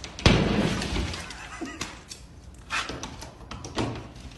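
A loud thump and crunch of drywall breaking through, followed by about a second of crumbling noise, then a few smaller knocks and rustles.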